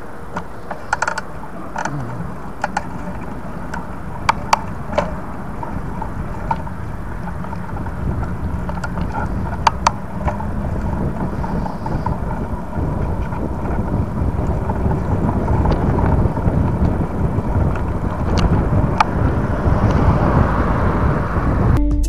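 Bicycle ride heard from an action camera: wind buffeting the microphone and tyre rolling noise, with a few sharp clicks and rattles. The rushing grows louder towards the end.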